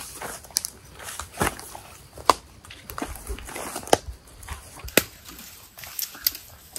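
Footsteps of people walking along a trail: irregular sharp crunches and rustles, roughly one to two a second.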